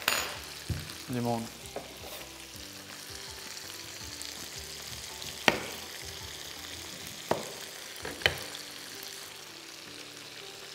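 Steady sizzle of breaded chicken fingers frying in hot sunflower oil, with three sharp clicks in the second half.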